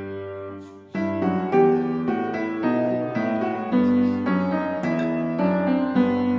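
Background piano music: a gentle melody of held notes that fades almost out just before a second in, then starts again with a new phrase.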